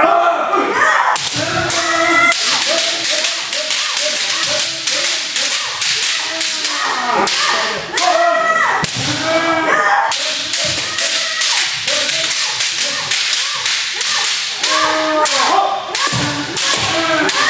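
Bamboo kendo swords (shinai) striking armour in rapid, repeated cracks, mixed with the drawn-out shouted kiai of several practitioners.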